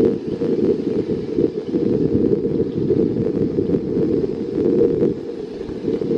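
Steady low roar of whitewater rapids on a swollen mountain river, mixed with wind rumbling on the microphone.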